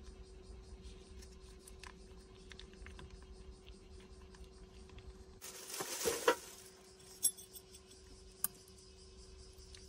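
A short rustle of a foil sauce sachet being handled about halfway through, ending in a sharp clink, then a few single clicks of metal chopsticks against a glass bowl as noodles are mixed, over a faint steady hum.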